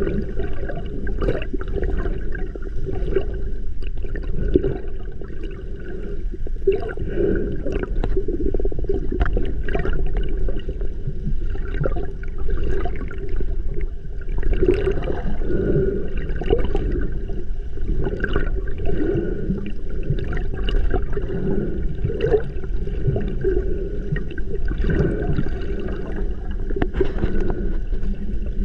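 Muffled underwater water noise picked up by a camera just below the surface: a steady low rush and gurgling of moving water, with many small crackles and pops throughout.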